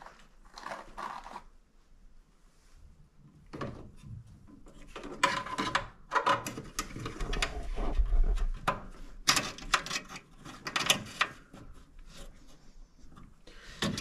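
Irregular clicks, taps and rustles of hands working among a gas furnace's burner parts and wiring, busiest in the middle stretch.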